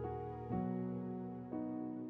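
Soft, slow instrumental keyboard music: sustained chords, with a new chord struck about half a second in and another near the end, the music starting to fade out.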